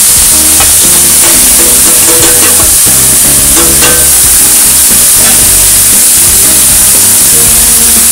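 Seasoned ground beef frying in hot oil with browned sugar, sizzling steadily, with a few light clicks in the first half. Background music with changing notes plays under it.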